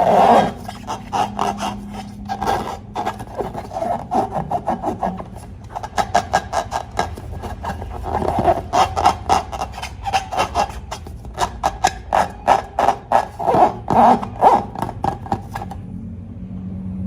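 Rapid rubbing and scraping strokes, several a second, stopping shortly before the end.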